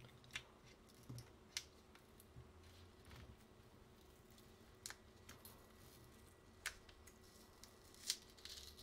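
Mostly near silence, with a handful of faint small clicks and crinkles from fingers peeling plastic wrap and green paper insulator rings off the ends of a pack of 18650 lithium-ion cells.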